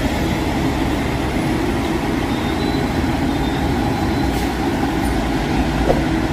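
Concrete mixer truck's diesel engine running steadily as the truck drives slowly past.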